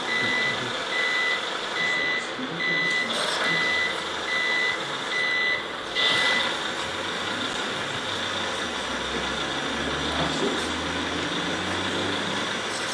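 RC timber truck's sound module sounding a reversing beeper, a high beep about twice a second, which stops about six seconds in. A low hum follows near the end.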